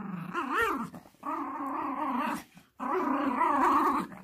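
Yorkshire terrier play-growling with a plush toy in its mouth, keeping it from the owner: three growls, the first short and wavering up and down in pitch, the next two longer and steadier.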